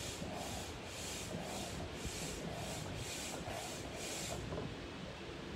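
Hand-operated plunger air pump being worked up and down to inflate an inflatable pool, each stroke a rhythmic whoosh of air at about two strokes a second. The pumping stops about four and a half seconds in.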